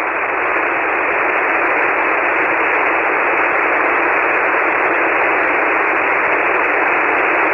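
Steady hiss of open-channel band noise from a ham radio transceiver receiving single sideband on the 40-metre band (7.188 MHz), with no station transmitting. It sounds thin and rushing, cut off below and above by the narrow SSB voice filter.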